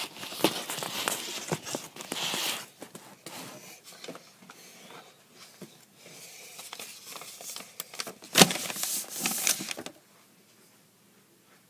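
Rustling, scraping and knocking of a phone camera being handled close to the microphone, with a sharp knock about eight and a half seconds in; it goes quiet about ten seconds in.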